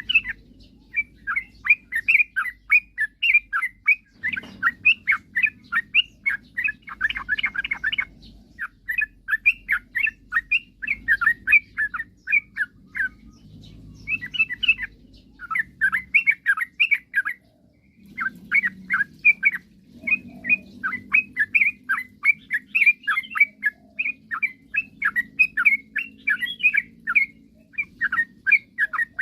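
Yellow-vented bulbul (trucukan) singing: fast, chattering phrases of quick chirping notes, broken every few seconds by short pauses. A low steady hum runs underneath.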